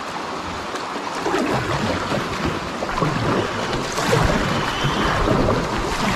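River water rushing and splashing around a kayak as it drifts down into a shallow riffle, getting louder as the kayak moves into the faster water.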